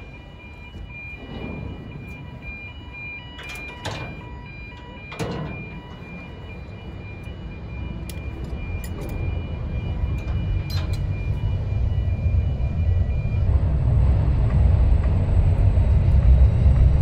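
Metal clanks and knocks of a steel crane personnel basket as workers board it and close its gate, over low machinery rumble that grows steadily louder as the basket is lifted.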